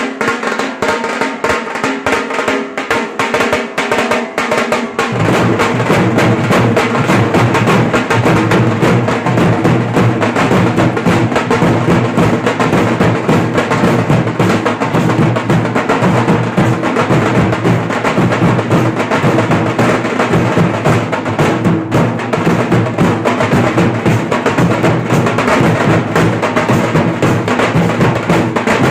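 Dhol pathak ensemble of many large dhol drums beaten with sticks in a fast, loud, driving rhythm. About five seconds in, deep bass strokes come in and the drumming gets fuller and louder.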